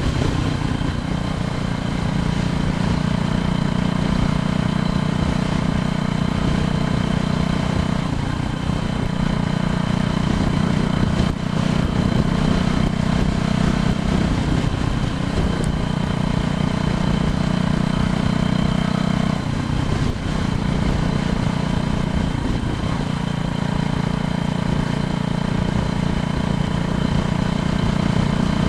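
Steady road noise of a bicycle in motion: a constant tyre hum with low rumble, easing briefly twice.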